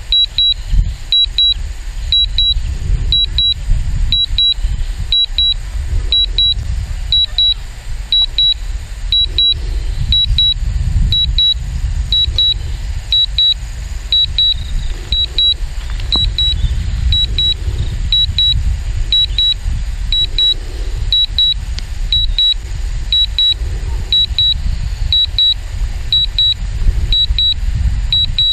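Strong wind buffeting the microphone as a heavy, gusting low rumble, with a short high double beep about once a second from the DJI Mavic Pro's remote controller, its alert while the drone flies an automatic return to home on low battery.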